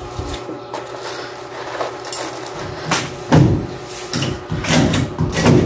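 Irregular knocks and thuds of a PVC ceiling panel being handled and fitted overhead, starting about halfway through, over a faint steady hum.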